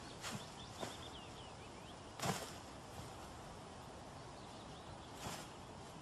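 Capercaillie cocks sparring in heather: a few short, separate strikes of flapping and scuffling, the loudest a little over two seconds in. Faint small-bird chirps sound behind them.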